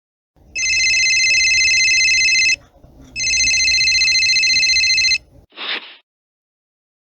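Telephone bell ringing twice, each ring about two seconds long with a short pause between them, followed by a brief noise.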